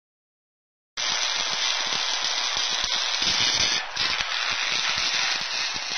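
Hissing, crackling fire sound effect, like a lit fuse burning, that starts about a second in, runs steadily with a brief dip near the middle, and cuts off abruptly at the end.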